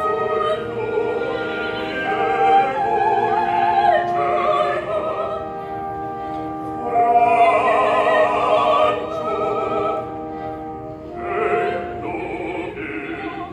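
Opera singing with orchestra: operatic voices hold long notes with wide vibrato over sustained orchestral accompaniment.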